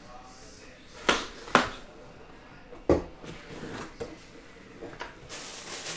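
Cardboard jersey box being handled and opened: three sharp knocks in the first three seconds, two of them about half a second apart, then a few lighter clicks and a rustle near the end as the lid comes off.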